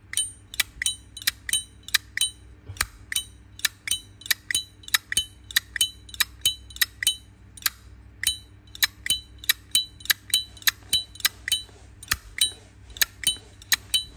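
Zippo lighter's hinged brass lid flicked open and snapped shut over and over, about three sharp metallic clicks a second, each with a short bell-like ring.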